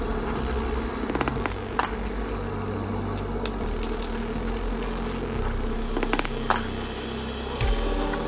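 A few sharp metallic clicks and taps from a steel punch and small stainless lifeline toggles being handled at a bench vise, over a steady low hum.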